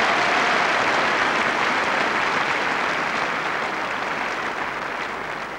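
Large seated audience applauding, a dense steady clapping that slowly dies away toward the end.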